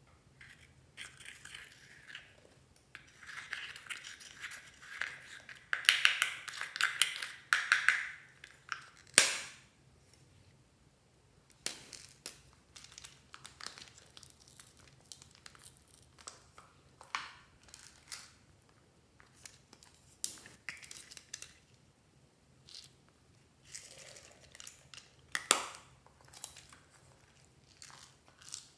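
Metal spatula scraping pink pressed eyeshadow powder out of its compact, a dry scratching in quick repeated strokes for several seconds. A sharp click follows. After that come scattered clicks and knocks as plastic Hello Kitty fan toys are handled.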